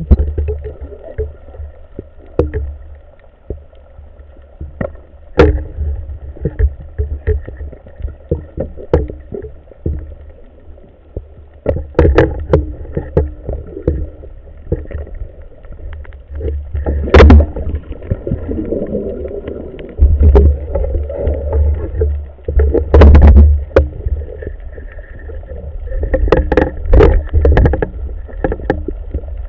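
Underwater sound through an action camera's waterproof housing: a muffled low rumble of moving water with scattered sharp clicks and knocks, the loudest about 17 and 23 seconds in, over a faint steady whine.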